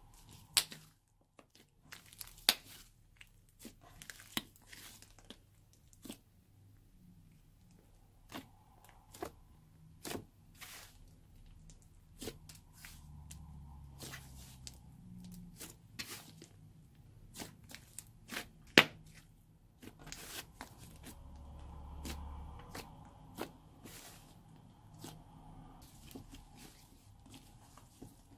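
Thick clay-mixed slime being kneaded, folded and pressed by hand, giving irregular sharp pops and crackles. There are a few stretches of low, dull squishing, about halfway through and again around three-quarters of the way in.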